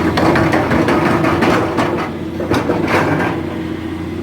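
Engine running steadily at idle, with a busy run of clicks and knocks over it for the first three seconds or so.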